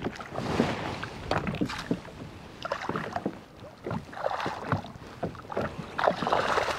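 Water splashing and sloshing as a hooked trout thrashes at the surface and is scooped with a landing net beside a kayak, with scattered sharp knocks of gear against the kayak.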